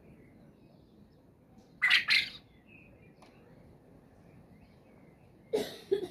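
Japanese quail calling in short bursts: a quick double note about two seconds in, and another brief double sound near the end.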